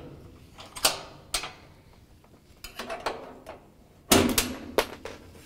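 Flathead screwdriver prying steel retaining spring clips out of a washer cabinet frame: a string of sharp metal clicks and scrapes, with a louder metallic clatter about four seconds in.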